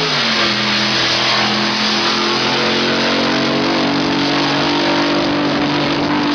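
Loud car engine running, its pitch dropping just at the start and then holding fairly steady.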